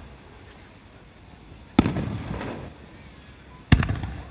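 Aerial firework shells bursting twice, about two seconds apart. Each burst is a sharp bang followed by a rolling rumble that dies away over about a second.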